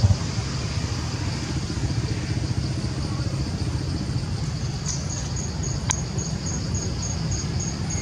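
Steady low rumble like distant road traffic, with a high-pitched chirp repeating about four times a second from about five seconds in and a single sharp click just before six seconds.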